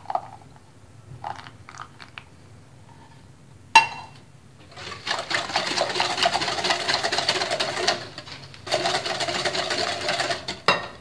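Wire whisk beating a thin egg, sugar, milk and melted-butter batter in a glass bowl: a fast, even rattle of the wires against the glass, in two spells with a short break between them. About four seconds in, before the whisking, comes a single sharp knock.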